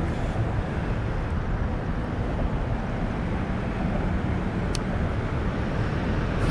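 Steady low rumble of traffic on the highway bridge, with a faint short tick about three-quarters of the way through.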